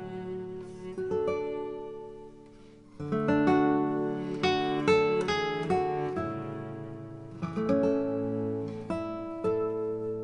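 Background music: acoustic guitar playing plucked notes and chords, with a quieter stretch before it comes back louder about three seconds in.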